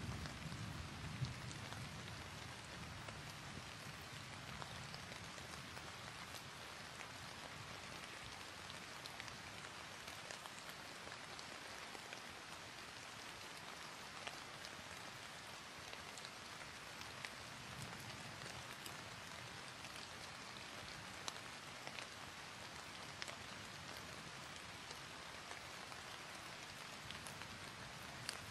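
Faint steady hiss of room tone with scattered soft ticks, and a faint low rumble at the start and again about 18 seconds in.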